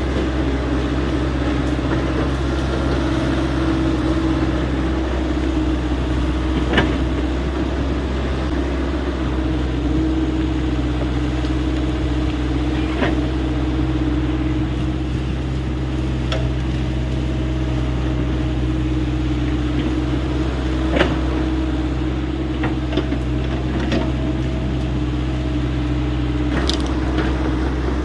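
Hyundai 85A excavator's diesel engine running steadily at work, with a few short sharp knocks here and there.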